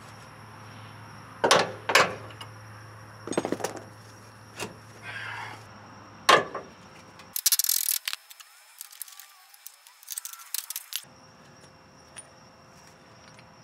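Hand tools clanking and knocking on steel front-suspension parts of a 1976 GMC motorhome while a control arm bolt is worked loose: sharp metal knocks, the loudest about a second and a half in and around six seconds, then several seconds of quick metallic clicking and rattling.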